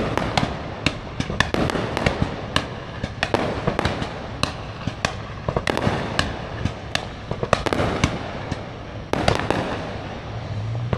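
Aerial fireworks going off in a rapid, irregular string of sharp bangs, several a second, with no let-up.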